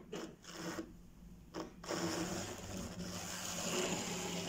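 A few short scrapes as the Minitrix N gauge model steam locomotive is handled on the track, then from about two seconds in its small electric motor runs with a steady whirr as it moves off along the rails.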